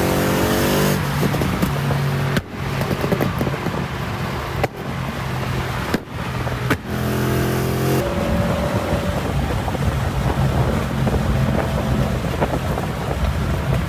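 Car engine running and revving, its pitch rising near the start and again about halfway through, with several abrupt cuts between clips.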